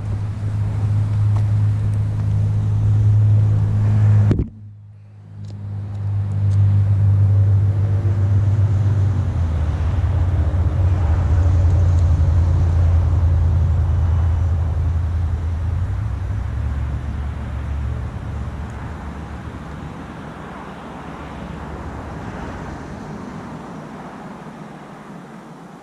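FPV quadcopter in flight, heard as a steady low rumble of motor and airflow noise. It drops out abruptly about four and a half seconds in, comes back, then slowly fades.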